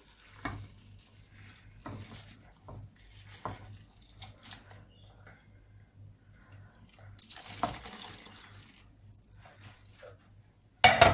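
Boiled liquid yogurt pouring from a steel pot into a pan of fried vegetables: a soft splashing pour with a few light knocks. A loud clatter comes near the end.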